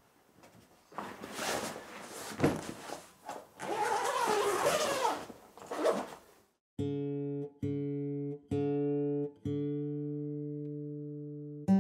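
Rustling and handling of a soft guitar gig bag as the guitar is taken out, then a single string of a Fender acoustic guitar plucked four times about a second apart while it is tuned, the last note ringing longer. A chord is strummed right at the end.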